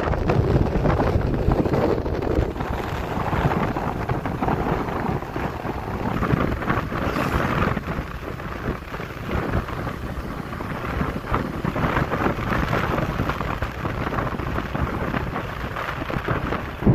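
Wind buffeting the microphone of a moving motorcycle, a steady low rumbling rush mixed with road noise.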